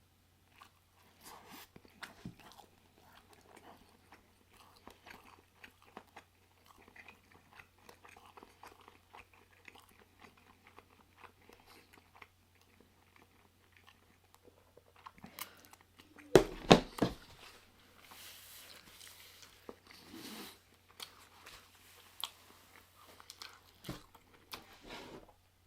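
Close-miked chewing, biting and wet mouth and lip smacking while eating soft, greasy pulled-pork sandwiches. Two loud bumps come about two-thirds of the way through.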